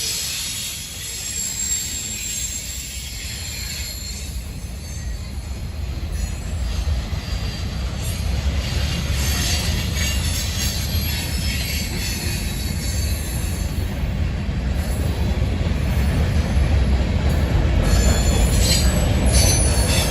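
Freight train rolling past with a heavy, steadily building low rumble and a high-pitched squeal from the wheels on the rails.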